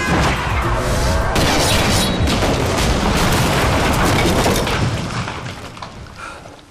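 A loud boom followed by dense, crackling blast noise, as from an explosion in a film, fading away over the last two seconds.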